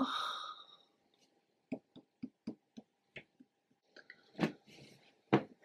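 A breathy sigh, then a run of soft ticks, about three or four a second, and two louder taps near the end.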